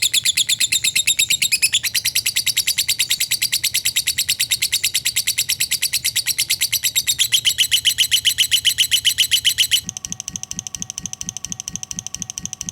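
Lovebird 'ngekek' song: a long, unbroken, very fast chattering trill of high, shrill notes, about a dozen a second. About ten seconds in it cuts off and gives way to a quieter, lower, evenly pulsing call.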